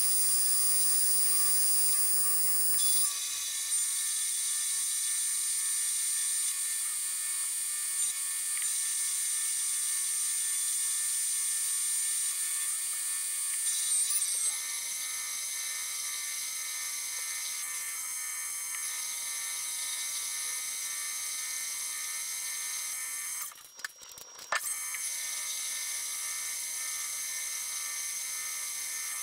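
Precision Matthews 1440TL lathe running through a boring cut in 4140 steel with a carbide boring bar, a steady high-pitched whine made of many tones that shifts in pitch a few times. The sound drops out briefly near the end.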